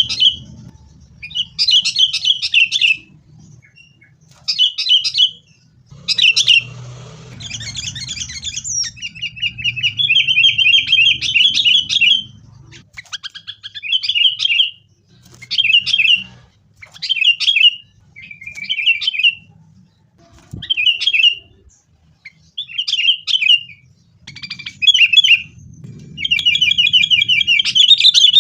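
Sooty-headed bulbul (kutilang) giving noisy, chattering calls in short bursts every second or two. Twice it breaks into a longer rattling run of several seconds.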